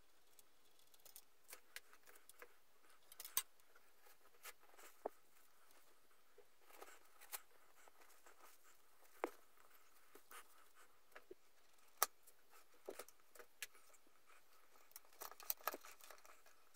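Faint, scattered light clicks and metallic taps of hand work on a motorcycle's brake lines, as tools, fittings and clips are handled, over near silence.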